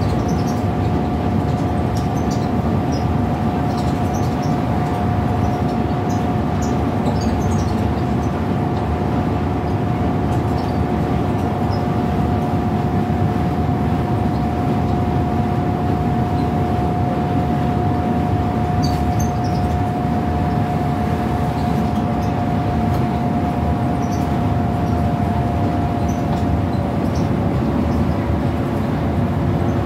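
Interior running noise of a Scania L94UB Wright Solar single-deck bus cruising at speed: a steady drone of engine and road noise with a steady high whine that dips slightly in pitch near the end, and occasional light rattles.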